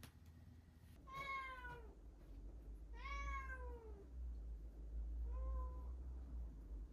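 Orange tabby cat meowing three times, each meow falling in pitch, the second the longest and the third short and fainter, over a low hum.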